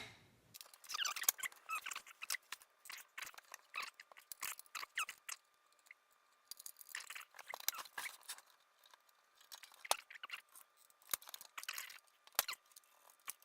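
Hands working on the metal chassis and parts of a network switch: scattered sharp clicks and taps with short squeaky, scraping rubs, coming irregularly and pausing briefly about halfway through.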